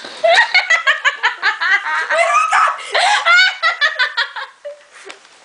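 Hard, high-pitched giggling and laughter in rapid bursts, fading out about four and a half seconds in.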